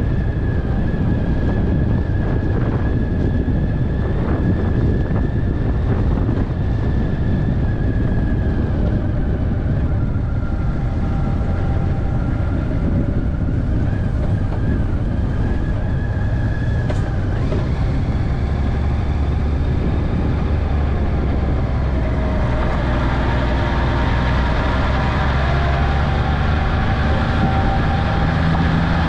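Honda Valkyrie Interstate's flat-six engine running steadily as the motorcycle rides along at low speed. Its note changes about two-thirds of the way through, with clearer pitched lines coming through.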